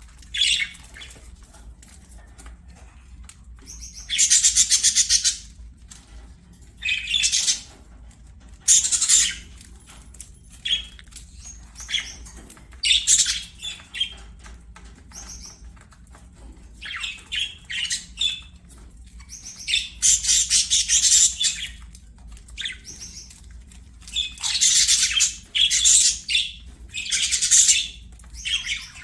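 Pet budgerigars chattering and warbling in repeated bursts of a second or two, with short pauses between; a faint steady low hum runs beneath.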